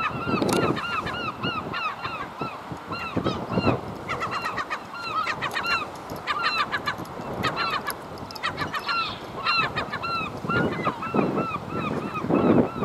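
A flock of birds calling over and over in short, arched calls, many overlapping. Gusts of wind rumble on the microphone near the start, a few seconds in, and more strongly near the end.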